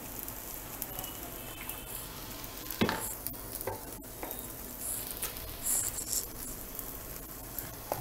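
Faint steady sizzling hiss of cooking oil heating in an aluminium pressure cooker on a gas burner, with a few light clicks and a knock about three seconds in.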